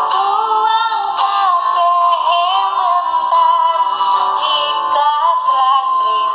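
A woman singing a melody to acoustic guitar accompaniment.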